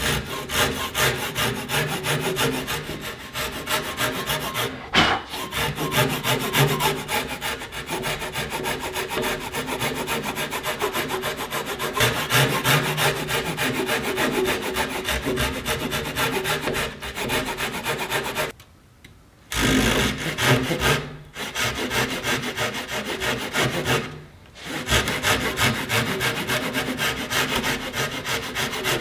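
Japanese pull saw cutting across a timber post for a tenon, the hand-drawn blade going in steady, even back-and-forth strokes. The sawing stops briefly twice, about two-thirds of the way through and again a few seconds later, then carries on.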